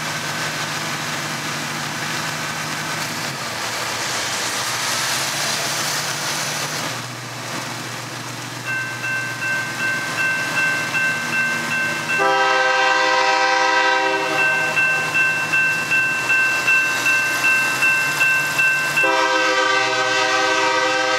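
Locomotive air horn on the lead BNSF ES44AC of an approaching coal train, sounding two long blasts: one about twelve seconds in and another starting near the end. Under the horn, from about nine seconds in, a bell rings steadily about twice a second.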